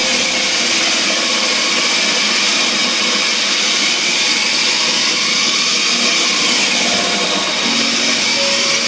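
Homemade electric disc sander, built from an old saw, running steadily with a continuous high rushing noise.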